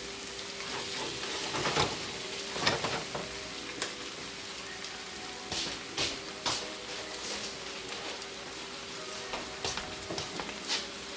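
Cubed chicken and vegetables sizzling in oil and butter in a pan, a steady hiss, with a few short clicks and scrapes of a utensil stirring against the pan.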